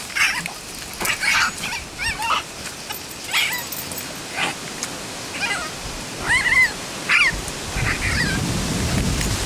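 Coonhound giving a string of short, high yelps and barks at a raccoon in the brush at the base of a tree, roughly one to two a second and unevenly spaced.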